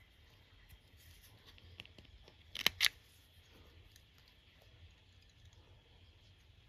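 Quiet handling at a fly-tying vise, with two sharp clicks close together about two and a half seconds in and faint scattered ticks.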